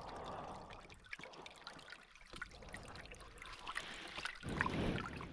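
Small stream trickling faintly, with light splashes and a few soft knocks as cookware is rinsed in the water.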